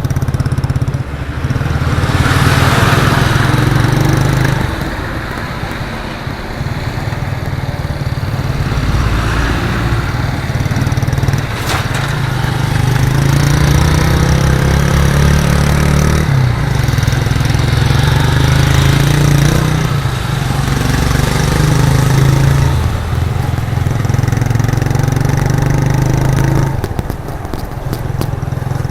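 1998 Suzuki GN125's air-cooled single-cylinder four-stroke engine and exhaust under way, its pitch rising and dropping several times as it is revved and shifted through the gears, with road and traffic noise.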